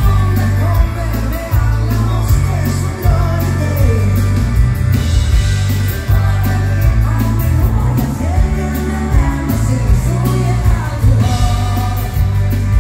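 Live dance band playing a rock'n'roll-style song with a singer, a heavy bass line and drums with steady cymbal beats.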